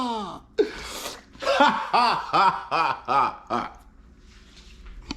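A man laughing: a quick run of about six short voiced "ha" sounds, starting about a second and a half in after a brief vocal sound.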